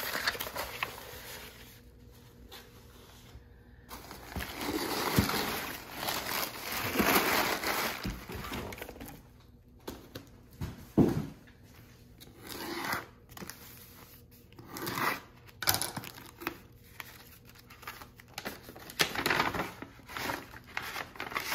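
Paper and packing material rustling and crinkling in irregular bursts as rolled paper prints, crumpled packing paper and a paper envelope are handled, with a few short handling knocks.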